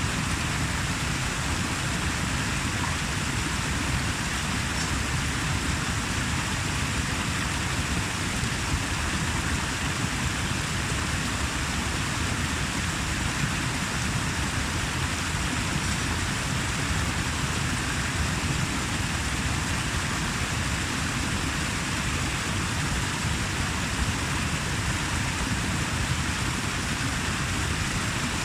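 Water rushing steadily, an even continuous noise with no breaks or distinct splashes.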